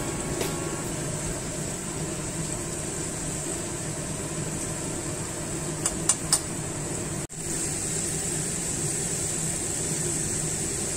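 Cassava slices frying in hot oil in a pan: a steady sizzle, with three sharp clicks about six seconds in and a brief break a little after seven seconds.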